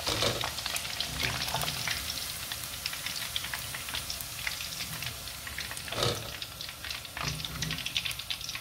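Chicken strips in batter deep-frying in hot oil: a dense, steady crackle of small spitting pops. A metal slotted skimmer knocks in the pan twice, once at the start and louder about six seconds in.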